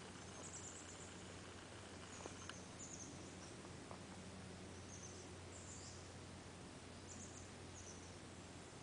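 Faint, short high-pitched bird chirps, repeated at irregular intervals every second or two, over a steady low hum.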